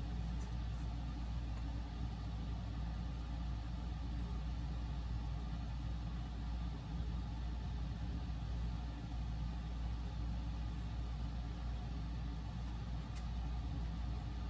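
Steady low machine hum with no change in level, with a couple of faint clicks about half a second in and near the end.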